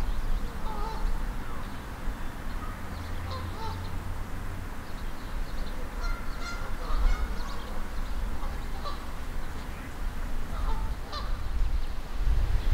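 Geese honking now and then, with brief higher bird chirps over a low rumble.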